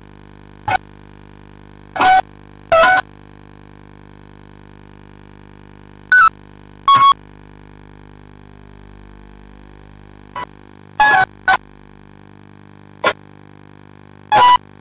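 Short pitched notes from a musical instrument, about ten in all, each lasting a fraction of a second and sounded singly or in quick pairs at irregular gaps, like an instrument being tried out. A steady low hum runs underneath.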